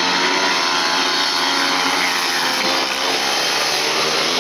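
Speedway bikes racing around the track, their 500 cc single-cylinder methanol engines running hard in a loud, steady engine note.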